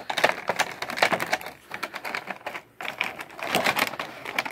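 Clear plastic blister tray of an action-figure package crinkling and clicking in rapid, uneven crackles as it is pulled out of its cardboard backing and handled.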